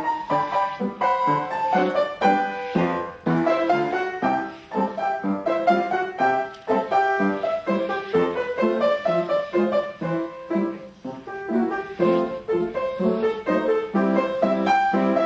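Piano music with a quick, busy run of notes and chords.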